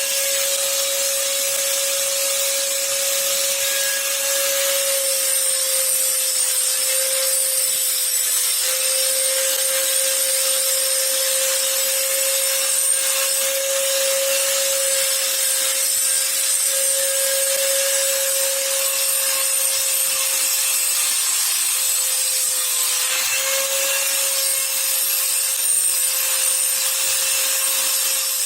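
Electric power tool running steadily with a continuous whine and a rasping hiss, as of grinding or abrading metal. It starts abruptly.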